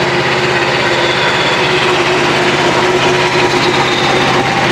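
Portable band sawmill running steadily under load, its gas engine driving the band blade through a red oak log.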